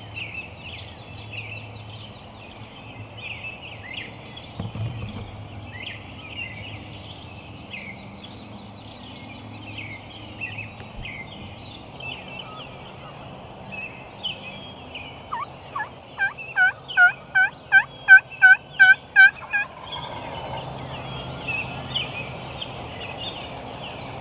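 Songbirds chirp through the whole stretch. About sixteen seconds in comes a loud, even run of about a dozen turkey calls over some four seconds, each note dipping in pitch.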